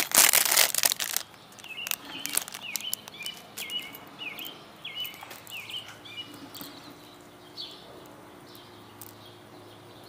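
Clear plastic packaging bag crinkling as it is torn open for about the first second, then a bird calling with a quick run of short, repeated chirps for a few seconds, with a few more later.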